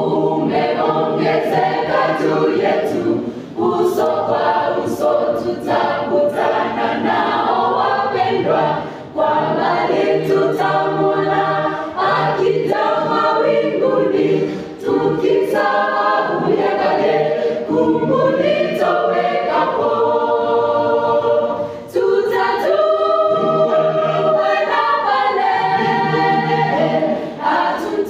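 Mixed church choir singing a cappella in multi-part harmony, dipping briefly between phrases every few seconds.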